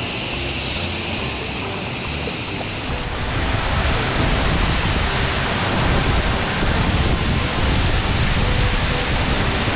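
Waterfall rushing: a steady noise of falling water that grows louder and fuller about three seconds in.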